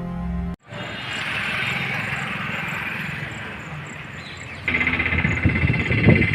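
Background music cuts off abruptly under a second in, giving way to outdoor ambience with a steady high insect chirring. This grows louder about two-thirds of the way through, with irregular low rumbling noises beneath it.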